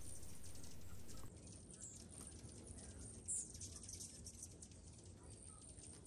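A faint steady hiss cuts off a little over a second in, giving way to the faint patter of a small fountain's water stream splashing onto a plastic dome. A short high bird chirp comes about three seconds in.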